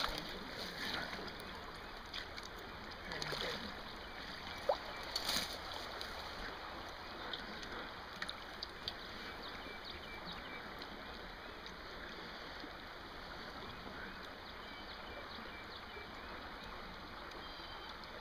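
Shallow creek water running steadily, with a few splashes and knocks in the first several seconds as someone wades through it in waders; the sharpest knock comes about five seconds in.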